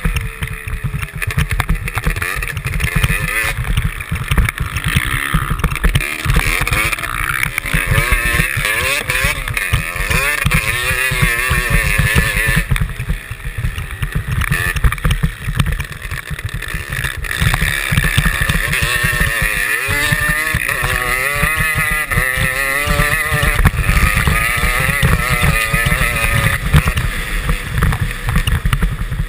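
Motocross bike's engine revving up and down as it tows a skier on a rope over snow, its pitch rising and falling repeatedly, over a heavy low rumble.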